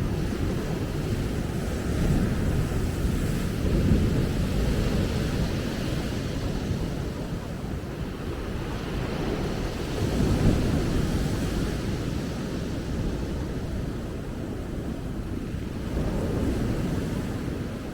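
Ocean waves washing onto a beach, swelling and falling back several times, with wind rumbling on the microphone.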